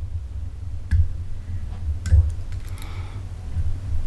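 Light clicks and ticks of a whip-finish tool and tying thread being worked at a fly-tying vise, with low handling bumps underneath. There are sharp clicks about one second and two seconds in.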